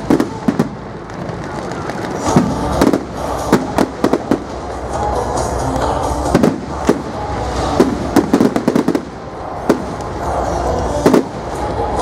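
Fireworks display: a rapid, irregular series of sharp bangs and cracks from exploding shells, several a second at the busiest points.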